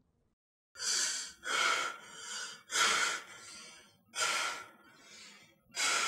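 A man breathing hard in ragged gasps: about five loud breaths with quieter breaths between, roughly one a second.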